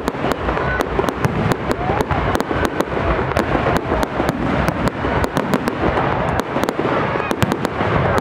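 Large-calibre aerial firework shells bursting in a dense, unbroken volley: many sharp bangs a second, with no let-up.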